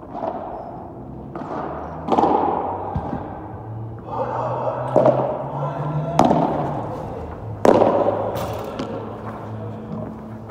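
Padel rally: a string of about eight sharp hits of the ball on rackets, court and walls, each echoing around a large domed hall. The loudest hit comes about three quarters through, an overhead smash.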